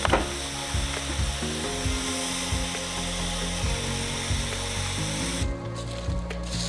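Background music with a steady beat and a stepping bass line, with a hissing layer on top that cuts off suddenly about five and a half seconds in.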